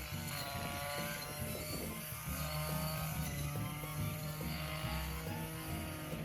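Background music over a steady engine drone.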